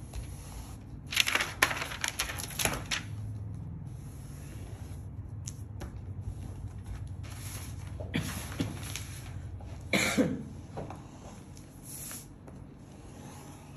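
Pattern paper rustling and sliding on a worktable in short bursts as the sheets are handled and marked, the loudest about a second in and again about ten seconds in.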